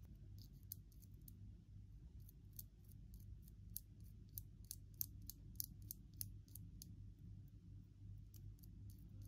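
Faint, sharp ticks, about two to three a second and irregular, as a bare copper wire end from a 9V battery is brushed against a sharpened pencil's graphite tip, making small sparks. A low steady hum sits underneath.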